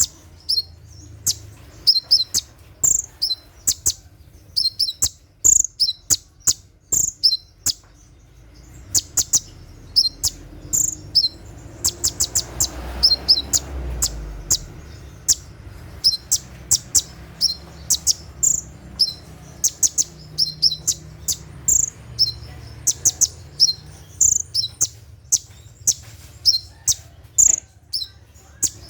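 Olive-backed sunbird (konin) giving rapid bursts of sharp, high-pitched chips, the rattling 'tembakan' song, in repeated clusters with short gaps between them.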